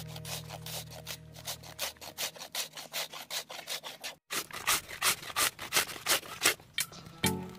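Raw green mango grated by hand on a stainless-steel grater: a rhythmic run of rasping strokes, about three a second, broken by a brief gap a little past halfway.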